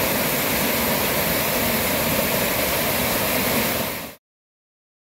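Water falling in a sheet from a wall fountain and splashing into a shallow channel: a steady rushing noise that cuts off abruptly about four seconds in.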